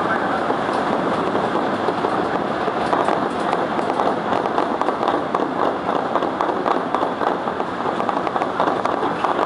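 Kintetsu Keihanna Line train running through an underground tunnel just after departing, heard from the front of the car: a steady rumble of wheels on rail with rapid fine clicking through it.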